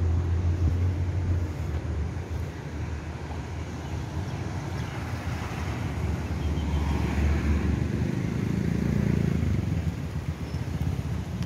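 Road traffic with a steady low rumble; a motor vehicle passes, its sound swelling and fading about five to eight seconds in.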